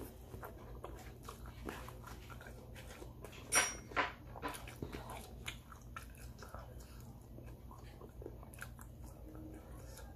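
Close-up chewing and mouth sounds of a person eating sticky, sauce-glazed fried chicken, with small clicks and smacks throughout. Two short, sharp, louder sounds stand out about three and a half and four seconds in.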